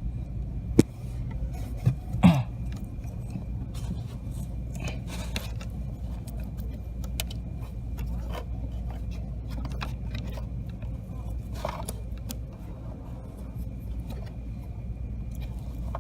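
Small metal clicks, clinks and scrapes from hand work on a clutch cable, fitting its end and pin to the clutch release fork. The sharpest clicks come about a second in and again about two seconds in, over a steady low hum.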